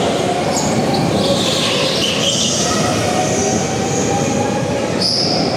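Go-kart running on a track: a loud, steady drive noise, with high-pitched squeals coming and going, strongest about two seconds in and again near the end.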